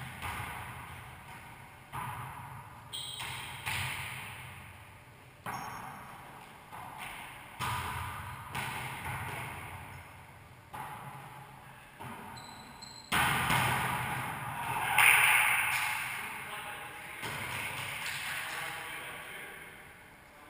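Wallyball rally in a racquetball court: the rubber ball struck by players' hands and rebounding off the walls, about a dozen sharp, echoing hits roughly one to two seconds apart. The hits grow louder and busier about two-thirds through.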